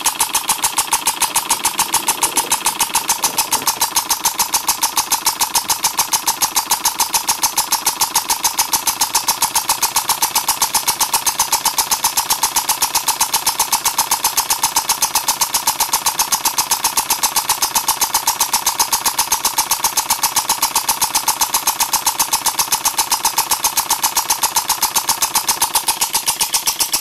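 Small two-stroke generator engine converted to run on compressed air through a quarter-inch 12-volt solenoid valve, running steadily with a rapid, even train of pulses and a steady high tone above them. It runs weakly: the small solenoid acts as a throttle and lets too little air in.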